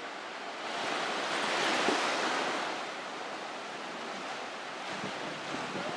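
Sea water rushing, swelling about a second in and easing off after a couple of seconds, like a wave washing in, with no engine tone heard.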